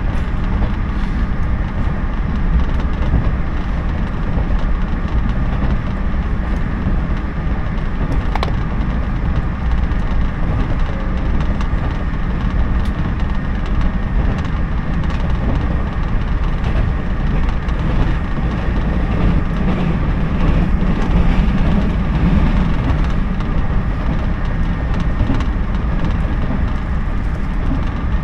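Inside a JNR 113 series electric train running at speed: a steady, loud rumble of wheels on rail, with scattered clicks and knocks, one sharp click about eight seconds in.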